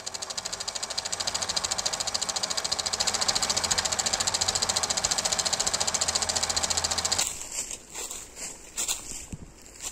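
Fast, even mechanical clatter of a film projector running, a rapid train of clicks at a steady rate. It cuts off suddenly about seven seconds in, giving way to quieter, uneven outdoor noise.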